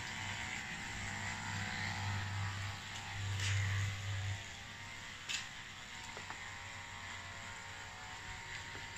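65-watt DC water pump of a portable camping water heater running: a steady low hum over a steady hiss. The hum stops about four seconds in while the hiss goes on, with two sharp clicks around then.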